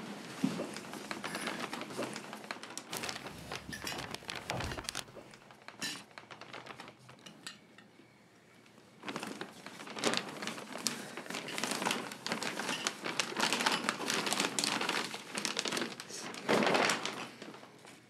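Wrapping paper crinkling and rustling as a present is unwrapped, dense from about nine seconds in. Before that, cutlery and dishes clink at the table.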